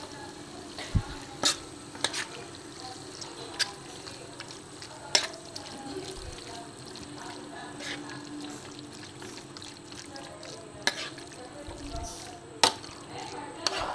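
A metal spoon stirring squid pieces in a thick red masala in a pan, with wet squelching and several sharp, irregular clicks of the spoon against the pan.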